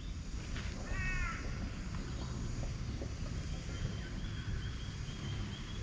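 Birds calling: one short harsh call about a second in, then a run of quick, evenly spaced high chirps from about three and a half seconds on, over a steady low rumble.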